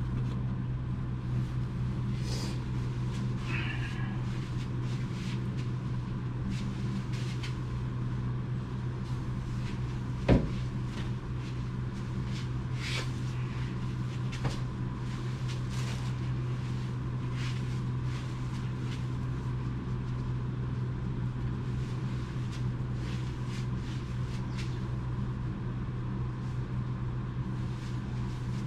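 Steady low machine hum with one sharp knock about ten seconds in and a few faint clicks.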